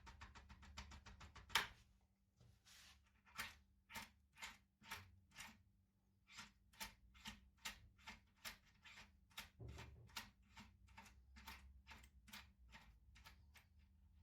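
Faint clicking of a foil opening tool being worked inside a Securemme k22 lock cylinder: rapid even ticks, one sharper click about a second and a half in, then a long string of slower clicks, about two a second, as the lock is worked open.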